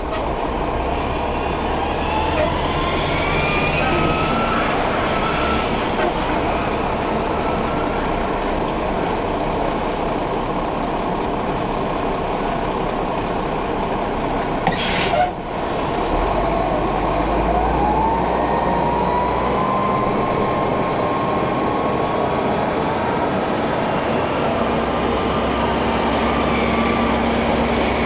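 Truck engine and road noise while driving. The engine note climbs twice as it gathers speed. There is a brief hiss about fifteen seconds in.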